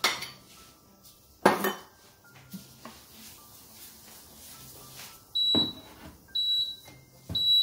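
Two metallic clanks, the second and louder about a second and a half in, as the AMC Navigenio heating hood is lifted off the stainless steel pot, with faint clinks after. From about five seconds in, a high electronic beep repeats about once a second: the Navigenio's signal that its 10-minute timer has run out.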